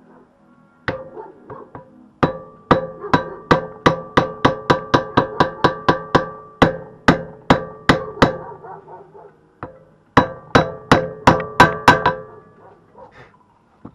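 Hammer tapping a metal drift to drive a small needle roller bearing into its seat: a run of about twenty quick, ringing metallic strikes at roughly four a second, a pause, then about eight more. The bearing goes in easily but has not reached its seat.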